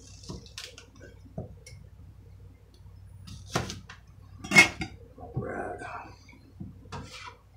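A cleaver and onion pieces tapping and clicking on a wooden cutting board as the onion layers are pulled apart, with a sharp metallic clack about four and a half seconds in as the cleaver is set down on the glass stovetop.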